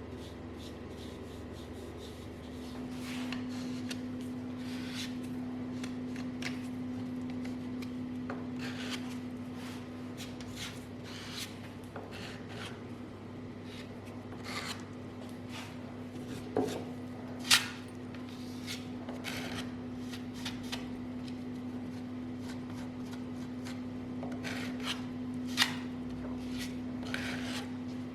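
Irregular rubbing and scraping strokes of hand work on a surface, over a steady low hum that comes in a couple of seconds in. A few sharp clicks stand out, the loudest a little past halfway.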